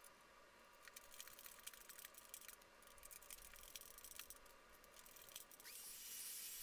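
Faint clicks and scrapes of a hand screwdriver turning screws into metal coat hooks on a wooden rack. Near the end a small motor spins up with a short rising whine into a steady hiss, a handheld vacuum starting for clean-up.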